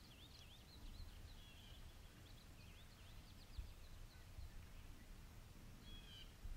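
Faint songbirds singing: quick series of high sweeping chirps at the start and again about halfway, and a short buzzy note near the end. Underneath is a low rumble of wind or microphone noise with a couple of soft thumps.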